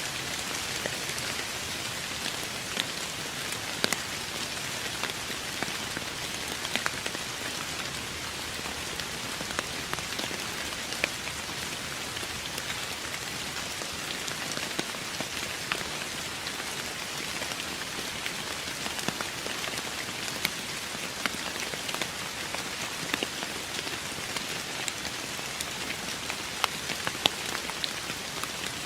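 Steady rain falling on a surface, an even hiss with many distinct drops ticking sharply through it.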